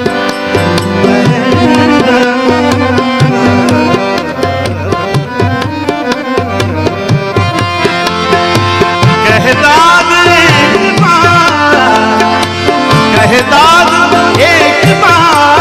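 Instrumental music with a steady percussion beat under held chords; about two-thirds of the way through, a higher melody line comes in that glides and wavers in pitch.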